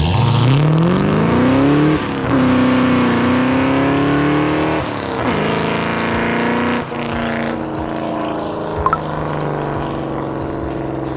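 Ford Mustang Cobra's V8 engine accelerating through the gears. The pitch rises and drops back at each shift, about two, five and seven seconds in, then runs steadier.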